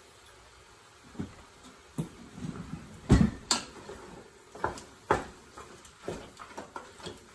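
Wooden spatula stirring meat in a metal pot, knocking and scraping against the pot's side in an irregular run. The knocks start about a second in and are loudest a little after three seconds in.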